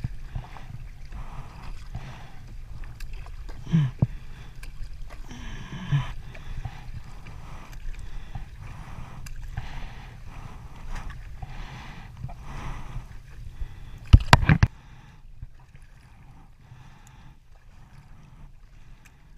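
Kayak paddle blades dipping and swishing through seawater about once a second, over a steady low rumble. About fourteen seconds in there is a loud cluster of knocks, after which the strokes are quieter.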